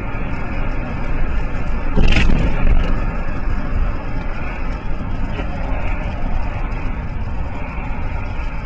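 Road and engine noise of a moving car, heard through a dashcam microphone, broken about two seconds in by one loud bang, typical of a collision.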